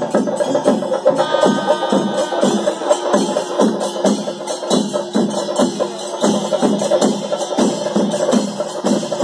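Chenda melam, the massed temple percussion of a Kerala festival: chenda drums beating a fast, steady rhythm with a bright metallic clatter over it. A brief held wind note sounds about a second in.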